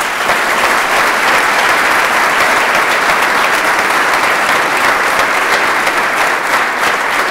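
Audience applauding steadily in a large hall, a dense even clapping sustained throughout.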